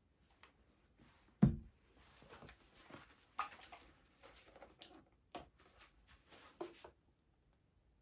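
Plastic squeeze bottles of paint being handled and set down on a table: scattered clicks and knocks, with one louder thump about one and a half seconds in.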